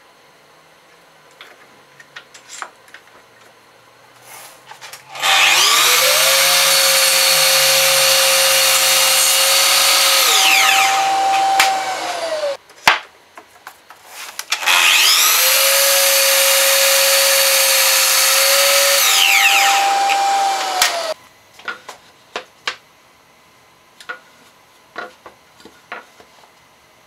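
Festool Kapex KS 120 REB sliding miter saw cutting wood twice: each time the motor spins up to a steady high whine, runs for about six seconds, then winds down. Small knocks of wood and tool handling come before, between and after the two cuts.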